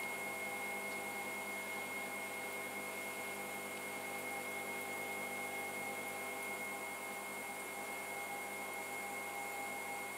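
Electric pottery wheel running at a steady speed while clay is thrown on it: a constant hum with a thin, high, steady whine above it.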